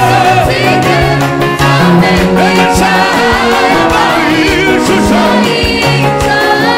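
Live gospel music: a group of men singing together into microphones over a band with a bass line and a steady drum beat, amplified through stage speakers.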